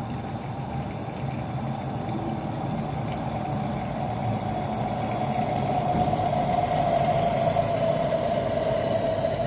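Electronic buzzer run by a Peltier module cooled with liquid nitrogen, sounding a faint steady tone that slowly grows louder as the thermoelectric voltage builds. Underneath is a low rumble of liquid nitrogen boiling in a copper beaker.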